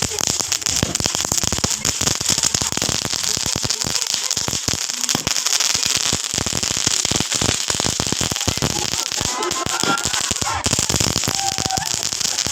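Firecrackers and fireworks going off in a rapid, continuous crackle of many small pops.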